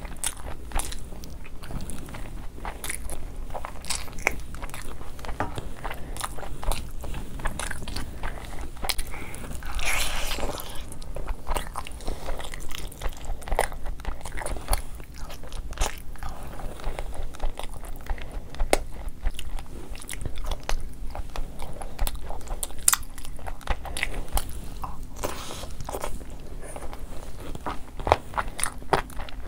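Close-miked mukbang eating: wet chewing of biryani rice and chicken, with many small crunchy clicks. A louder crunching bite into a fried, coated chicken piece comes about ten seconds in.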